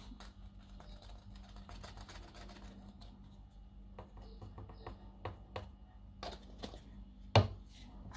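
Light plastic clicks and taps of a measuring scoop against the tub and a plastic pitcher as instant tea powder is spooned into water, with a sharper knock near the end. A faint steady hum lies underneath.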